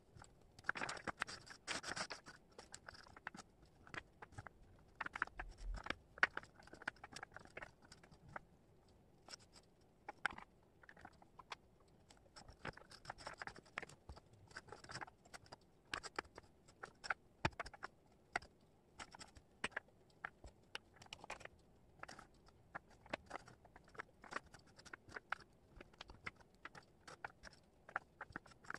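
Wooden jigsaw puzzle pieces being picked up, shuffled and set down on a cork board: many light, irregular clicks and taps with some scraping as pieces slide.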